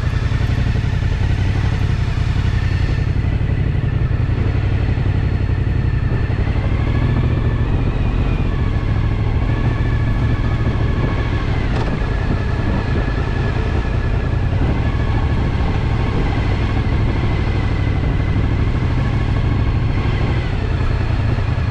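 Motorcycle engine running steadily at low speed in slow traffic, a continuous low rumble heard from the rider's seat.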